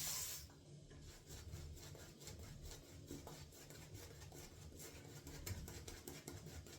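Shaving brush working a tallow shave soap into lather, a fast run of soft rubbing strokes. The lather is still dry and pasty at this stage.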